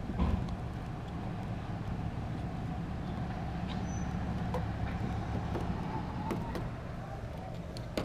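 A steady low hum and rumble, with a few light clicks and taps.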